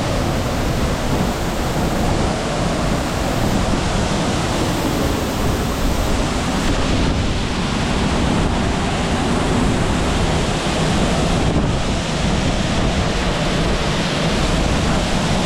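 Steady, loud roar of a large waterfall close by, with strong wind and spray buffeting the microphone.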